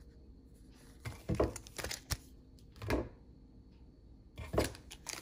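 Sealed trading card packs being handled and set down, several soft knocks and rustles spread through a few seconds.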